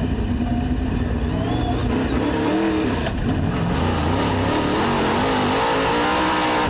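Dirt-track race car engine running hard, heard from inside the car, its pitch rising and falling repeatedly.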